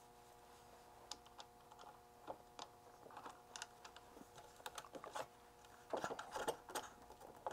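Faint, scattered small clicks and taps of small parts and tools being handled at a workbench, a few in a quick cluster near the end, over a faint steady electrical hum.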